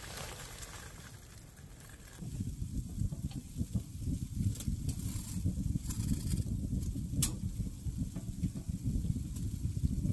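Small wood-burning tent stove fire drawing hard on freshly added wood with its air opened up: a steady low rumble that starts about two seconds in, with scattered crackles and sharp pops.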